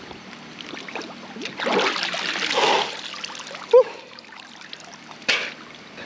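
River water scooped up and poured over a bather's head and body, splashing and running off for a second or two, starting about a second and a half in. A short vocal sound follows, and another brief splash near the end.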